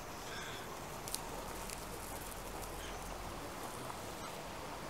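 Steady wind noise, a faint even rush with a low rumble on the microphone through the middle.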